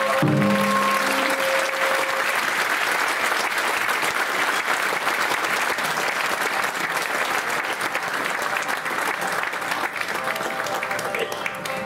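Audience applauding as a shamisen and taiko piece ends, the final held note dying away under the clapping in the first two seconds. The applause thins a little near the end as faint plucked string notes come back in.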